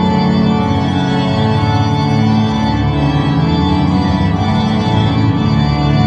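St Paul's Cathedral pipe organ playing loud, sustained full chords over strong bass notes, the harmony shifting every second or so.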